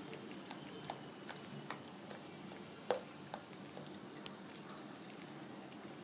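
Spoon stirring thick gram-flour batter in a glass bowl: a soft, wet mixing sound with light clinks of the spoon against the glass, the sharpest about three seconds in.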